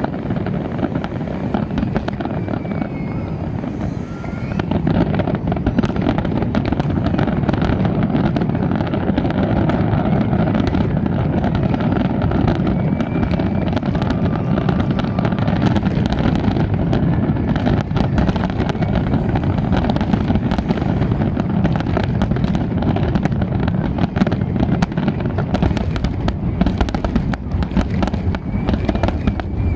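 Fireworks display: a dense, continuous barrage of bangs and crackling that grows louder about five seconds in.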